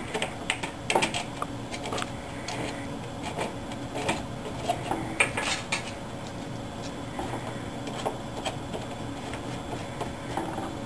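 Small metal nuts and bolts clicking and clinking as they are fitted by hand into the slots of a wooden 3D-printer frame: scattered light taps, busiest in the first six seconds and sparser after.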